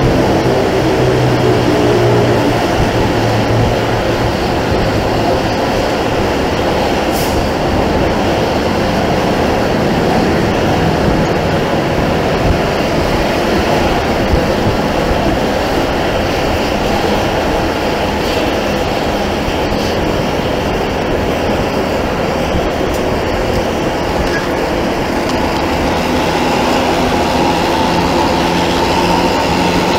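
Loud, steady road-traffic noise from moving vehicles: engine drone and tyre and wind noise.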